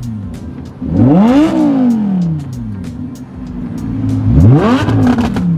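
High-performance car engine idling and revved twice, about a second in and again near the end; each time the pitch climbs steeply and then falls back to idle.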